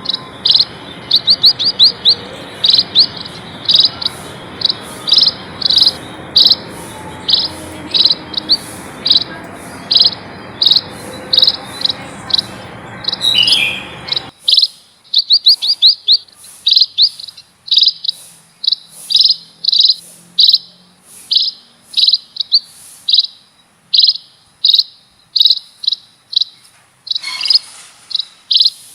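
Munias (emprit) chirping: short high chirps about twice a second, often in quick runs of several. A steady background hiss under the calls cuts off suddenly about halfway through.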